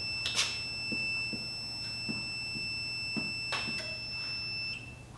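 High-pitched steady beep from the Zonecheck Addressable controller's buzzer, sounding because the controller is in fire mode. A few light clicks come from its front panel as it is pressed, and the tone cuts off near the end.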